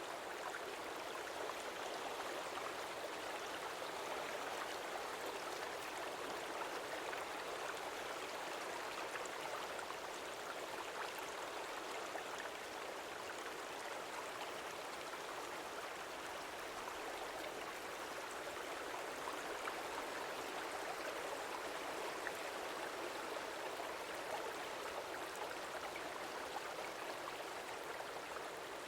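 Stream water flowing steadily: an even, unbroken rushing with almost no low rumble.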